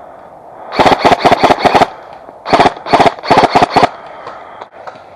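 An airsoft gun firing two rapid bursts of about a second each, roughly seven shots a second, with a short gap between them.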